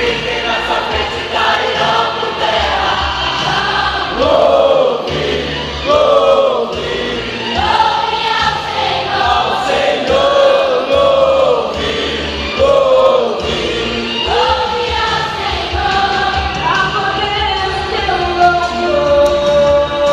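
Choir singing a gospel worship song in Portuguese over instrumental accompaniment, with held, gliding sung notes; the last note is held steady near the end.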